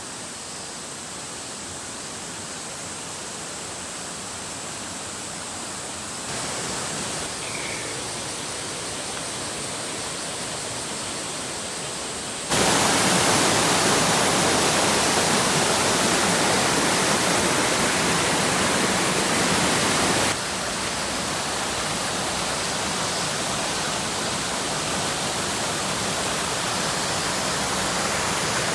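Waterfall pouring: a steady rush of falling water that steps louder about six seconds in, jumps much louder about twelve seconds in, and drops back about eight seconds later.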